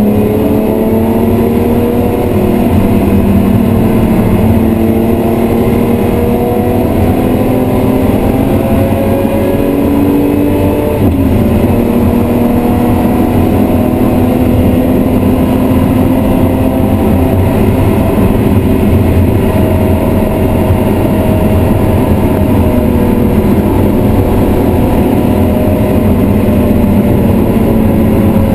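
BMW E36 M3's 3.0-litre straight-six running hard under load, heard from inside the cabin over road and tyre noise. The pitch climbs slowly, with one sharp drop about eleven seconds in.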